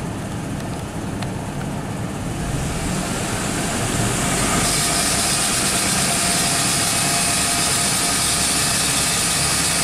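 2001 Chevrolet pickup engine with the AC on, its revs raised to about 2000 RPM over the first few seconds, then held there with a steady rattling, hissing noise. The noise goes away with the AC off: the sign of a failing AC compressor straining the AC belt tensioner.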